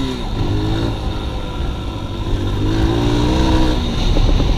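Dirt bike engine on the move, revving up as the throttle opens: pitch rises briefly near the start, then climbs again for about a second from two and a half seconds in before dropping back.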